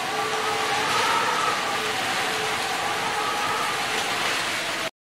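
Crushed charcoal and soil pouring steadily from a toy backhoe's plastic scoop into a plastic toy trolley, a rain-like patter that cuts off abruptly near the end.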